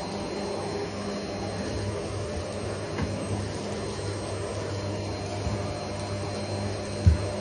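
Vacuum cleaner running steadily with a low hum, and a single knock near the end.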